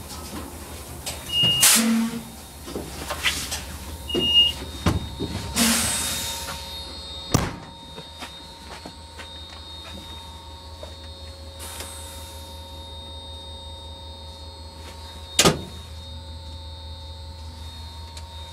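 Rebuilt AEM-7 electric locomotive's equipment running with a steady electrical hum made of several fixed tones. Sharp bangs and clanks come in the first seven seconds, with a burst of hissing about six seconds in and one more sharp bang about fifteen seconds in. These sounds are the kind said to mean serious trouble that usually shuts the locomotive down.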